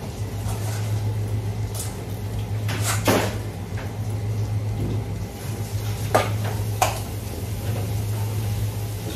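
A knife tapping and scraping on a plastic cutting board as small fish are split open, with a few sharp knocks about three and six seconds in. Tap water runs steadily under it, along with a steady low hum.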